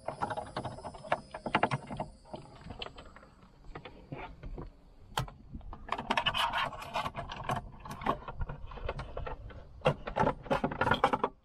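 Hands feeding USB cables behind a car's plastic dashboard trim toward the glove box: irregular scraping, rustling wires and small plastic clicks and knocks, busiest twice, around the middle and near the end.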